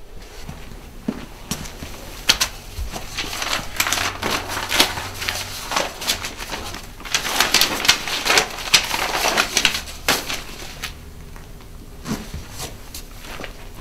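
Sheets of paper rustling and crinkling as they are gathered up off the floor, in quick clusters of crackles that are busiest around the middle.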